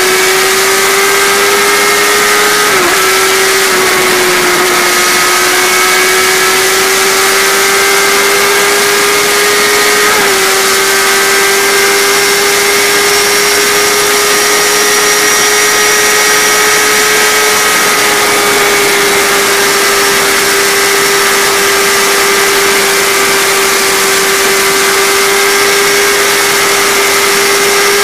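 Kawasaki Ninja ZX-10R's inline-four engine running at high revs at speed, a steady high-pitched drone over heavy wind rush. The pitch dips briefly twice, about three and ten seconds in.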